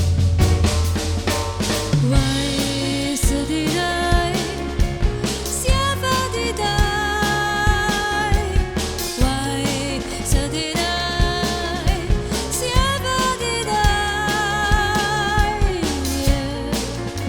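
A passage of a synth-backed song with no words: a drum kit keeps a steady beat under bass and keyboards, and a melodic lead line slides between long held notes.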